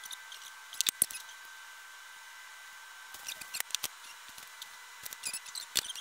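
Small clicks and taps of flat-pack furniture parts and hardware being handled during assembly, with a cluster of sharp clicks about a second in and more scattered clicks in the second half.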